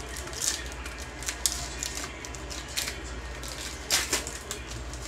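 Foil wrapper of a Topps Chrome baseball card pack crinkling and tearing open, in a run of short uneven rustles and rips, the loudest about four seconds in.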